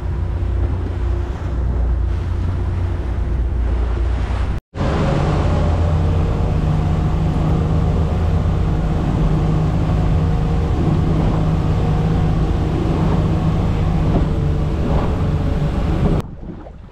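Motorboat engine running steadily under way, with wind and water rushing past. It breaks off for an instant about four and a half seconds in, is louder and steadier after that, and cuts off shortly before the end.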